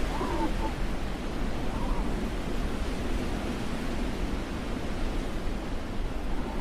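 Steady rushing wind noise with a low rumble, wind blowing across the microphone.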